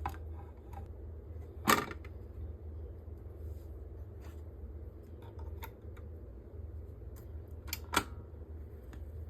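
A vinyl record and record player being handled: scattered light clicks and rustles, with two louder knocks, one about two seconds in and one near the end, over a steady low hum.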